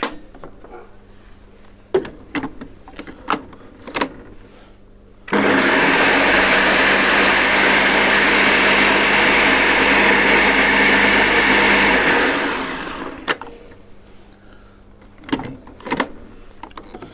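Ninja Smart Screen blender motor running with its food processor bowl, mixing egg yolks and mustard with a few drops of oil at the start of a mayonnaise. It starts suddenly about five seconds in, runs steadily for about seven seconds, then winds down. A few light clicks and knocks come before and after.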